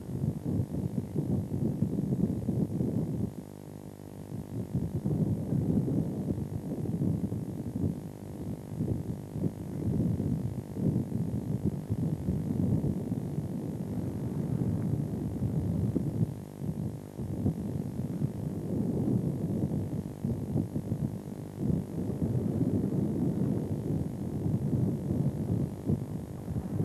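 Fishing boat's engine running with a steady low hum, under an uneven low rushing noise that swells and drops every few seconds.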